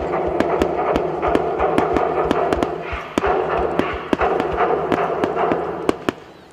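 Crowd applauding after the fireworks: dense clapping that dies away about six seconds in, leaving a few last single claps.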